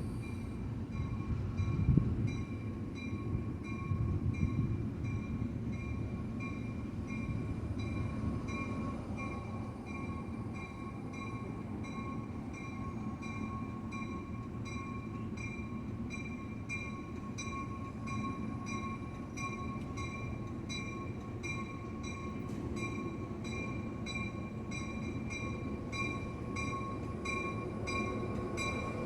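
Passenger train rolling along the track: a steady low rumble with an even run of high ringing ticks, about one or two a second, and a single louder knock about two seconds in.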